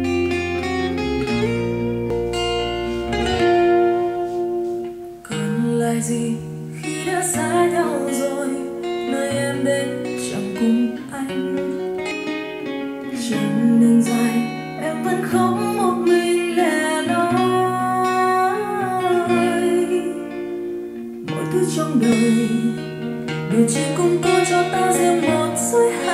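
A Vietnamese pop ballad played back on a portable speaker during a sound test: acoustic guitar over a bass line, with a voice singing from about five seconds in.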